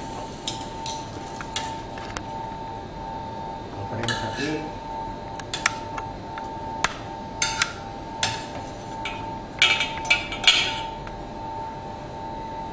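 Kitchen utensils and cookware clinking and knocking, a dozen or so sharp, irregular clinks, over a steady thin hum.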